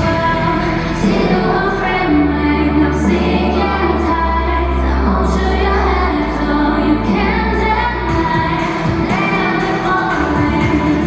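K-pop dance-pop song with female group vocals playing loudly through a concert PA, with heavy sustained bass coming in about two seconds in.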